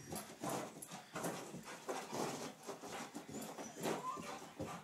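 Golden retriever–Labrador mix running and pouncing on carpet, its paws thudding and scuffing in quick irregular steps as it chases a flashlight spot.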